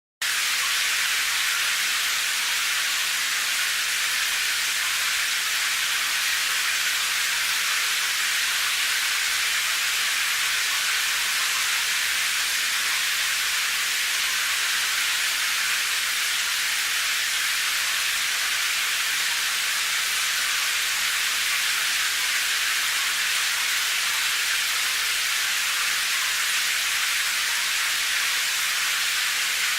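Steady rain: a dense, even, high hiss with no single drops or splashes standing out.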